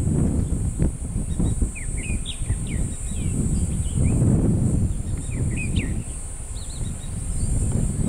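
Wind noise on the microphone, with many faint, short bird chirps scattered high above it and a steady high hiss.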